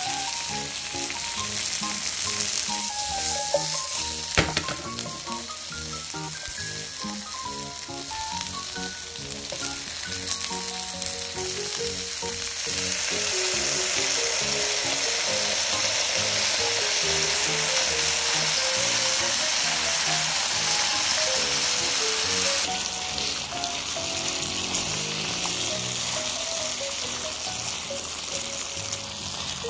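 Sausages, onion and garlic sizzling in a hot frying pan. There is a sharp tap about four seconds in. The sizzle turns louder for several seconds around the middle as a ketchup-based sauce is poured in, then drops suddenly.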